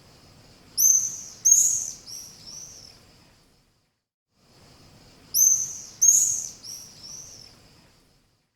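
Swallow calling: a phrase of about four quick, high-pitched chirps, the first two the loudest, heard about a second in and repeated almost identically about five seconds in.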